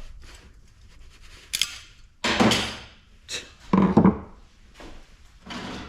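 Aluminum parts of a light fixture being worked loose by hand: a series of scrapes and knocks of metal, the loudest about two and a half and four seconds in.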